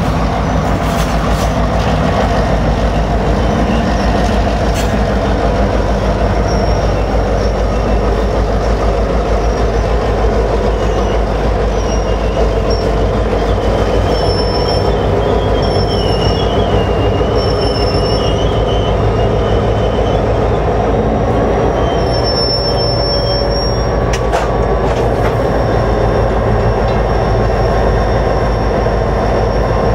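A freight train of tank cars rolling past slowly behind EMD road-switcher diesels, with a steady rumble of wheels on rail. A thin, high wheel squeal comes and goes in the middle, as the cars curve through the turnout into the siding, and a few sharp clanks sound along the way.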